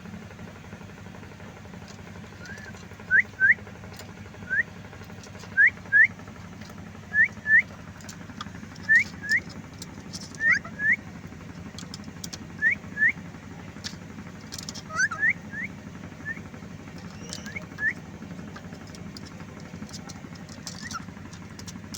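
Short, sharply rising whistles, mostly in quick pairs, repeating about every second and a half for some fifteen seconds, then stopping. A steady low hum runs underneath.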